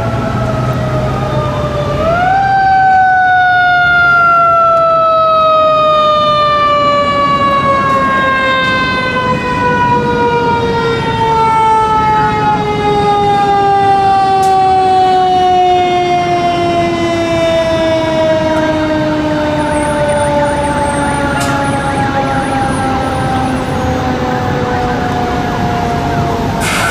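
Fire truck's mechanical Q-siren: a quick wind-up about two seconds in, then a long, slow wind-down, its pitch falling steadily as the rotor coasts.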